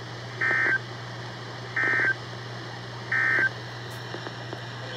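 Emergency Alert System SAME digital data bursts: three identical short two-tone warbling bursts about a second and a half apart. Bursts this short, sent three times right after an alert's spoken message, are the End of Message code that closes the alert. A steady low hum runs underneath.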